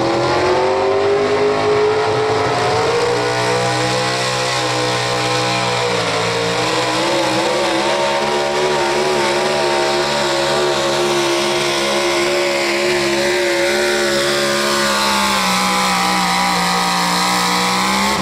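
Pro Stock 4x4 pulling truck's engine running hard at high revs down the track: the pitch climbs at first, then holds fairly steady with a slight wobble. Right at the end the revs fall away sharply.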